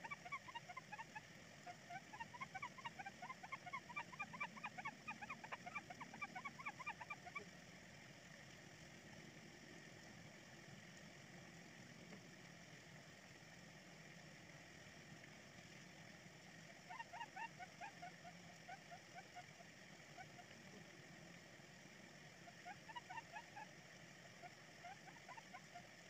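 Rapid runs of short, high chirping calls from a small animal, several to the second and wavering in pitch, over a faint steady hiss. A long run comes first, with two shorter runs later.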